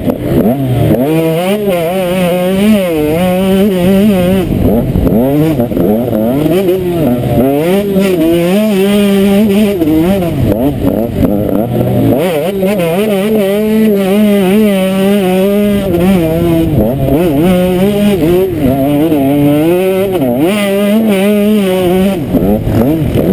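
Motocross bike engine heard close up from the rider, revving up and dropping again and again as it accelerates down the straights, shifts and slows into corners on a dirt track.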